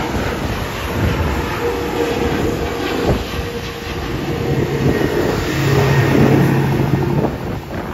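Jet airliner engines making a loud, steady rushing noise. A low hum comes in about halfway through and stops near the end, and the sound fades a little as it ends.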